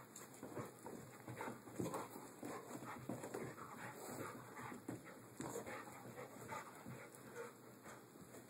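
Dog making faint whimpering and panting sounds, in many short irregular bursts.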